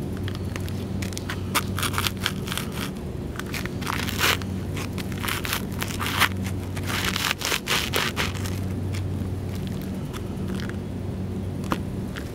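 Deer Stags dress loafers stomping on and grinding a pile of dry cereal on pavement: irregular crunching and crackling, busiest in the middle and thinning out near the end. A steady low hum runs underneath.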